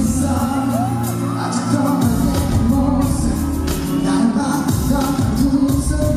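Live K-pop song: a male singer sings over a loud backing track with a bass line and a steady drum beat, heard from among the audience in a large hall.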